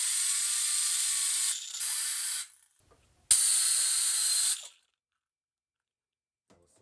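Compressed air hissing from an air blow gun into a 3D-printed air turbine in three blasts: a long one with a short break about a second and a half in, then a shorter one ending a little before five seconds in. A faint tone rises and falls beneath the hiss.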